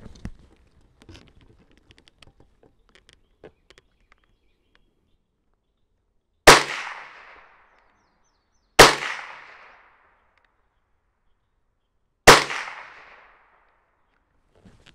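Three .22 LR rifle shots from a Marlin Model 60 semi-automatic firing CCI Stinger hyper-velocity rounds, faster than sound. The second shot comes about two seconds after the first and the third about three and a half seconds after that, each trailing off in a short echo. Faint handling clicks come before the shots.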